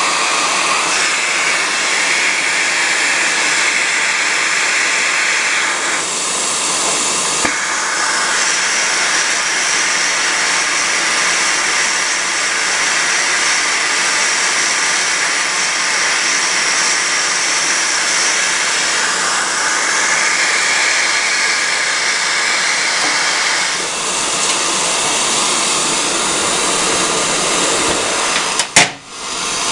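Propane torches burning into a small gold-melting furnace with a loud, steady rushing hiss as the crucible of ore and flux is heated. The hiss changes tone a few times and briefly drops out with a sharp click near the end.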